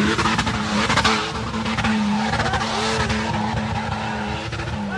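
4x4 SUV engine held at high revs as it powers through a boggy patch, its note steady apart from a couple of brief dips. The spinning wheels throw mud, which adds a dense hiss, heaviest in the first second or so.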